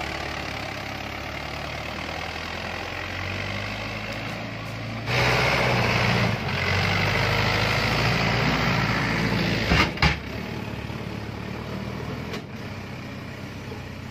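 Mahindra Yuvo 4x4 tractor's diesel engine running steadily under load as it pulls a heavily loaded straw trolley through mud, growing louder about five seconds in. A short, sharp double burst of noise stands out near ten seconds in.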